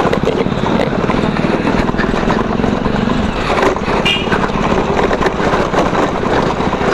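Tunwal Elektrika electric scooter ridden over a potholed road, its body parts, footpegs and handlebar rattling and knocking over a steady rushing noise. A brief high chirp sounds about four seconds in. The rattle is the sign of bumps passing through average shock absorbers into the body parts.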